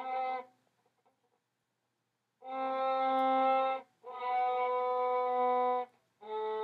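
Viola played with the bow: a note ends, a short pause follows, then three long notes of a slow descending scale, each a step lower than the last. The bow is played close to the bridge, which the teacher says gives a poorer tone than bowing nearer the fingerboard.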